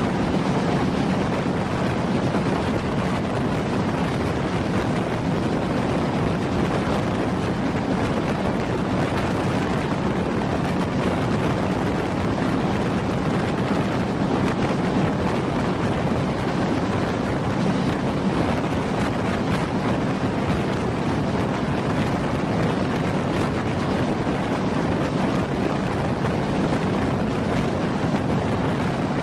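Steady running noise of a moving passenger train, a continuous rumble and rush with wind blowing on the microphone.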